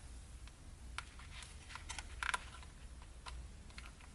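Scattered faint clicks and taps of a flat screwdriver prying at the snap tabs of an old plastic pocket-computer case (Casio PB-2000C), about half a dozen. The loudest is a quick double click a little past the middle.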